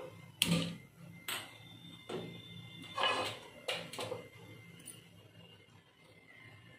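A few short knocks and clicks as a steel kadai is handled on a steel gas stove and the burner is lit.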